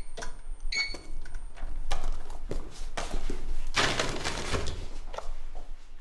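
Goods being handled on shop shelves: light knocks and a couple of short glassy clinks in the first second, then a rustle of packaging about four seconds in.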